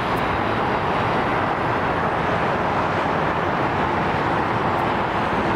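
Steady, loud vehicle roar: an even rushing noise with no clear pitch.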